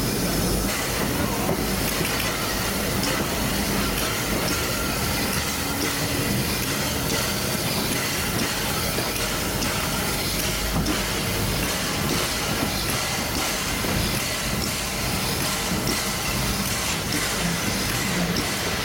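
Steam train hauled by a Brighton Terrier tank locomotive, heard from the carriage behind it: a steady rumble of wheels on the rails with scattered faint clicks and a hiss of steam.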